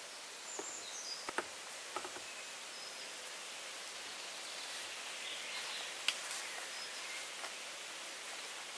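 Quiet forest ambience: a steady hiss with a few short, faint bird chirps, and a handful of light taps and knocks from handling a bucket and brush on the cabin roof, the sharpest about six seconds in.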